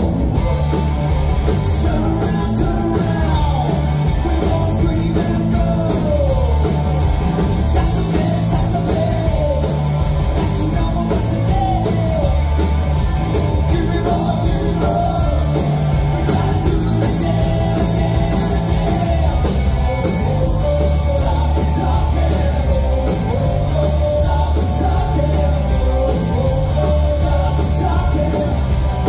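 Live rock band playing electric guitars, bass and drums with a steady beat, a singer's voice over the top, heard loud from within the audience.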